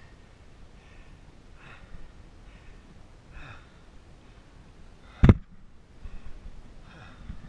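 Tired, heavy breathing of a man out of breath after swimming across a river, with a single sharp thump about five seconds in.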